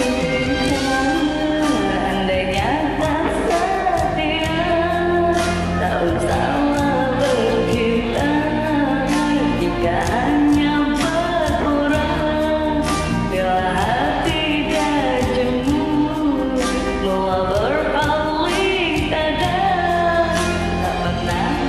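Karaoke performance of a Malay pop ballad: a voice singing a lead melody over a backing track with a steady beat.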